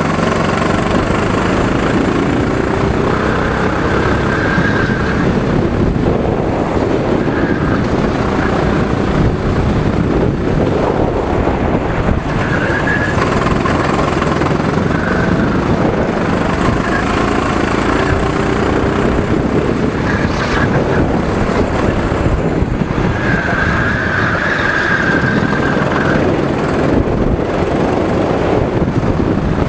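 Go-kart engine heard from onboard, its pitch rising and falling with the throttle through the corners, mixed with wind noise on the microphone.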